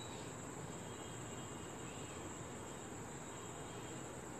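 Steady low background hiss with a faint high-pitched whine that comes and goes.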